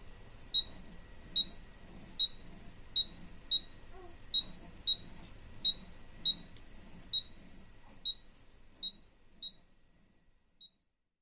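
A short, high-pitched chirp repeating steadily about every three-quarters of a second, growing fainter and dying away near the end.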